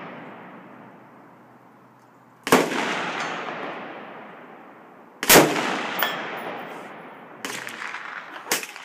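AR-15 rifle fired twice, about three seconds apart, each shot followed by a long rolling echo. Two quieter bangs follow near the end.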